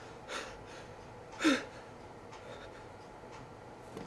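A man breathing hard, with one short gasp with a falling voice about a second and a half in, as he wakes startled.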